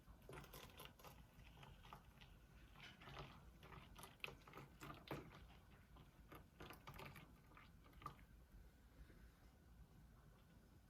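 Near silence with faint, scattered light clicks and taps of small objects being handled.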